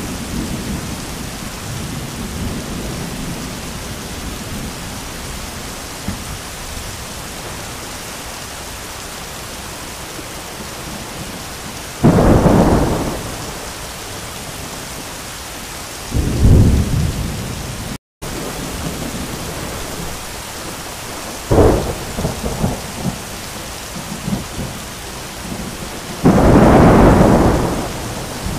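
Heavy rain pouring steadily, with thunder breaking in four times: loud claps about 12 and 16 seconds in, a sharp crack a little later, and a long loud peal near the end. The sound cuts out for a split second about two thirds of the way through.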